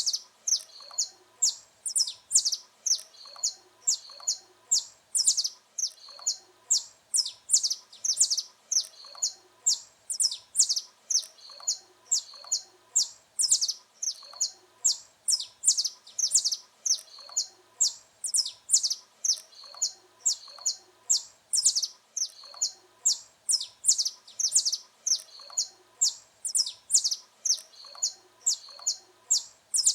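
Saffron finch (canário-da-terra) singing: a continuous run of sharp, high chirps, about three a second.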